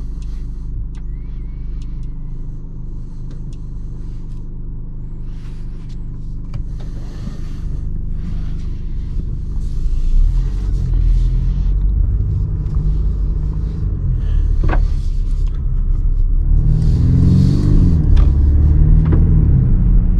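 Mercedes-Benz GLC 220d's four-cylinder diesel engine heard from inside the cabin: idling steadily at first, then louder as the car pulls away and drives off, the engine note rising and falling a few seconds before the end.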